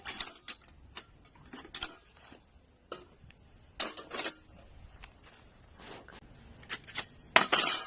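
Irregular metal clinks and clacks from the parts of a folding camping fire pit being handled. A louder pair comes about four seconds in, and a hit near the end rings briefly.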